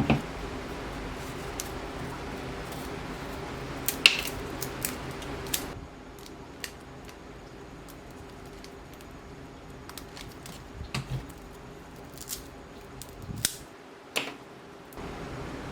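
Hand pruning shears snipping through flower stems: a string of short, sharp clicks at uneven intervals over a faint steady hum.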